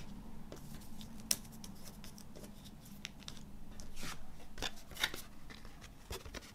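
Stiff paper postcards being handled and laid down on a wooden table: light taps, slides and paper rustles, with one sharp tick about a second in and a cluster of rustles around four to five seconds in.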